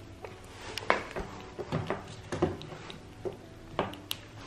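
Irregular light taps and knocks with soft rustling as a kitten bats at and bites a dangling cord next to a wooden cabinet.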